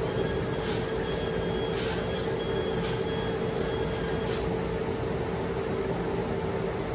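A machine used to cut acrylic sheet, running with a steady hum. A faint high whine and a few light ticks come in the first four seconds.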